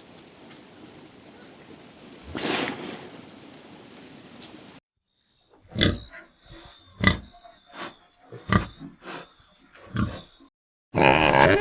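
Steady hiss with one brief swell, then a cut to a run of short animal grunts, about eight in five seconds, and a louder call near the end.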